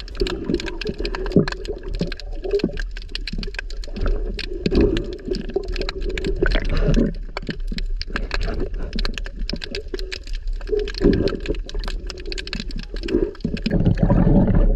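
Underwater sound through a camera housing: a dense, irregular crackle of clicks over a low rumble of moving water. Near the end it swells into a louder rush of bubbles and splashing as the swimmer breaks the surface.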